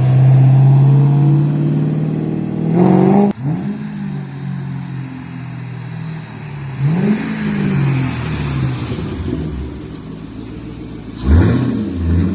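Car engine running and revving: a steady drone broken by three quick revs that rise and fall, about three, seven and eleven seconds in.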